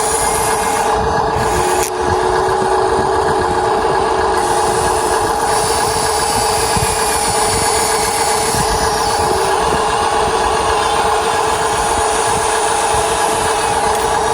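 A small motor running steadily: a constant hum with a steady whine on top, holding the same speed throughout.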